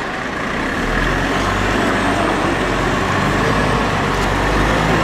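Diesel engine of a Scania aerial ladder fire truck running as it pulls away, the engine note strengthening about a second in, with tyre and road noise.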